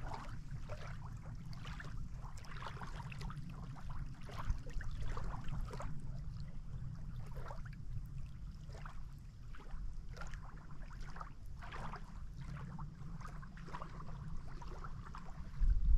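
Water lapping and splashing in small irregular slaps, over a steady low rumble of wind on the microphone, with a sudden louder gust of rumble near the end.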